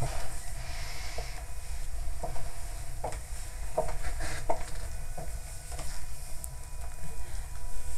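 A few soft, scattered clicks and light rustling over a steady low hum, with no speech.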